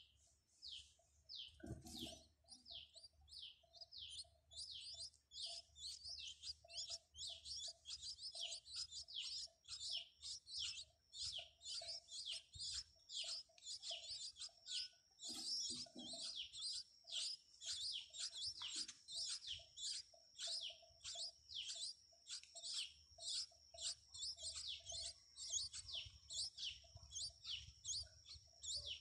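Nestling songbirds begging: a steady run of short, high, downward-sweeping chirps, about two to three a second, growing busier from about halfway through. A steady high whine runs under the chirps from about halfway, and there are two brief low thumps, one near the start and one about halfway.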